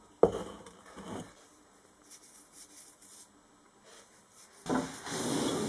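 Moulding sand being rammed and pressed into a tin-can mould flask with a wooden rammer and by hand: a sharp knock just after the start, a few light taps, then about a second of rubbing near the end.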